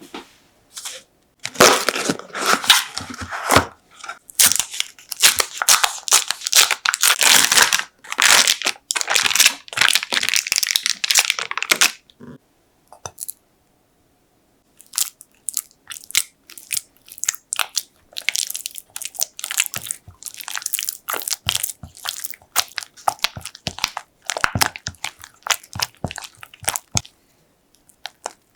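Kitchen handling sounds: a long run of rapid scraping, crunching strokes, a pause of a few seconds, then scattered clicks and short scrapes.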